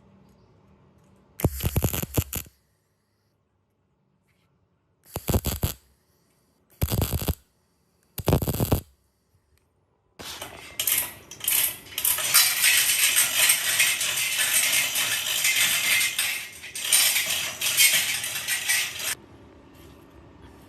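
Four short bursts of metal clinking and scraping, each cut off sharply, then a longer stretch of continuous metallic clatter and scraping from about ten seconds in.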